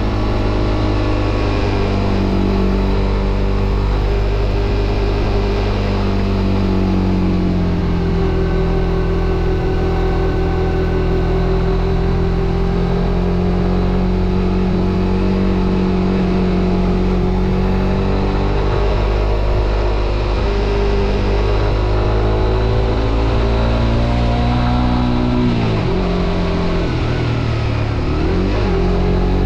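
Suzuki GSX-R125's single-cylinder four-stroke engine running under way, its pitch holding steady for long stretches as the bike cruises. About 25 seconds in the revs drop sharply, then climb again near the end.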